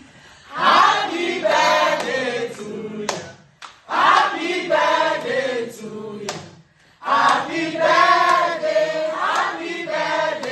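A group of voices singing together in three phrases of about three seconds each, with short breaks between them.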